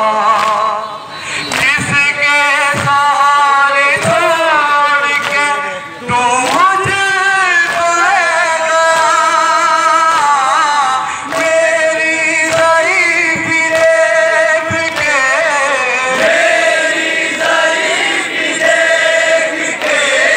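Men's voices chanting a nauha (Muharram lament) together, with sharp slaps of hands striking chests in matam about once a second.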